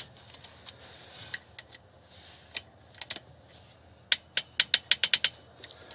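Ratchet wrench clicking while water pump bolts are snugged down: scattered single clicks, then a run of about seven quicker clicks a little past four seconds in.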